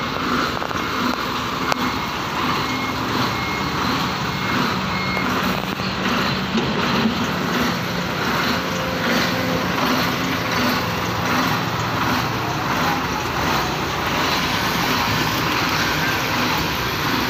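Kobelco SK220 hydraulic excavator's diesel engine running steadily under working load, with a warning beeper sounding in an even repeating pattern over it.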